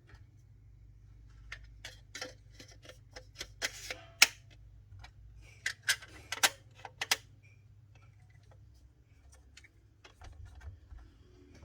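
Hand-handling noises from a camera lens and its packaging: irregular clicks, taps and short rustles, bunched together in the first half and sparser later.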